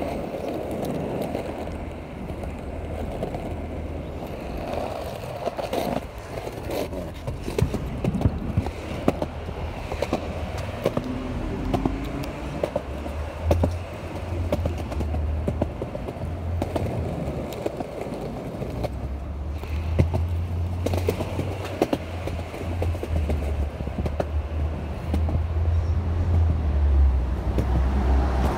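Skateboard wheels rolling over asphalt and concrete sidewalk: a steady rumble broken by scattered clicks and knocks.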